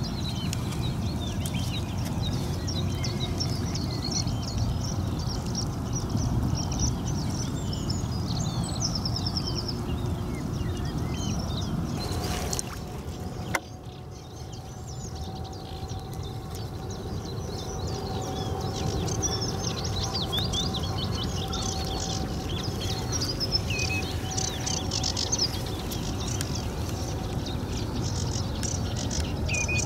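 Small birds chirping and singing continuously over a steady low background rush. About halfway through there is a sharp break, after which the background is quieter for a few seconds and a faint steady hum runs for several seconds.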